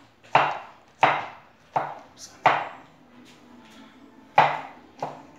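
Large kitchen knife chopping on a wooden cutting board: about six sharp knocks, four coming roughly every two-thirds of a second, then a pause of nearly two seconds before two more near the end.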